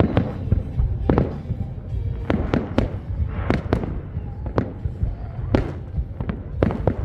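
Fireworks display: about a dozen sharp bangs at irregular intervals over a continuous low rumble of further bursts.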